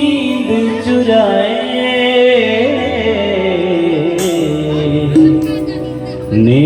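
Music: a sliding, ornamented melody over a low steady accompaniment, louder near the end.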